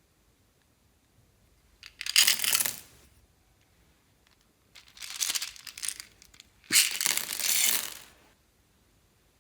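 Slime being squished and pressed by hand, giving three crackly bursts: one about two seconds in, a second a few seconds later, and a longer one right after it.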